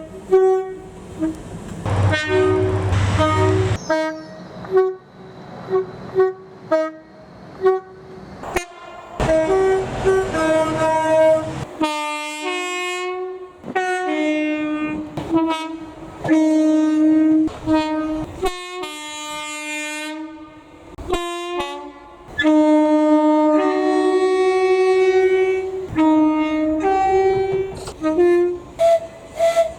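A train's air horn blown as a rapid tune of many short blasts switching between a high and a low note, with longer held notes in the second half.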